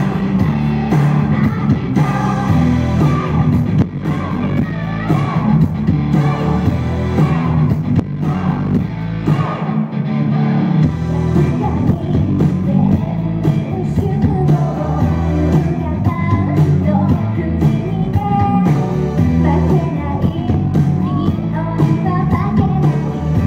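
Live concert music: a Japanese idol girl group singing together with microphones over a loud amplified backing track with heavy bass. The bass drops out briefly about ten seconds in.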